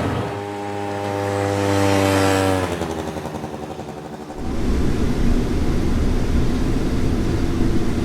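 A motor vehicle passing by: its engine note holds steady, then drops in pitch as it goes past and fades away. About four seconds in, a steady low rumble cuts in and carries on.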